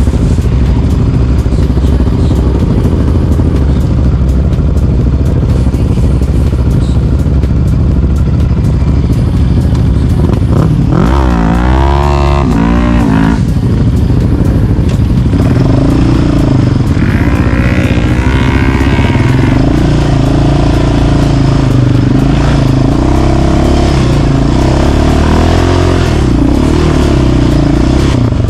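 Quad (ATV) engine running loud at close range. It revs up and back down sharply about eleven seconds in, then revs up and down repeatedly through the second half.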